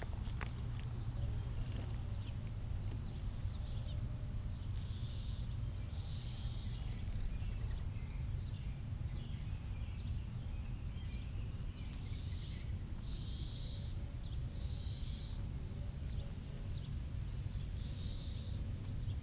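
Mourning doves cooing faintly: soft, low, drawn-out hoots under a steady low rumble. Short, high, buzzy calls from other birds come every second or two, with a few light ticks near the start.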